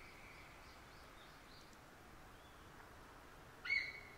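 Wild bird song: a clear whistled note sweeps up and then holds steady at one pitch. A few faint, short high chirps sound in between, and the next loud whistle starts near the end.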